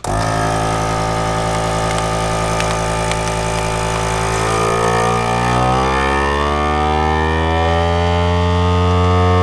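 GameSaver Outdoorsman vacuum sealer's pump starting abruptly and running steadily as it draws the air out of a bag of fish fillets. About halfway through, its pitch shifts and it grows a little louder as the vacuum builds and the bag pulls tight.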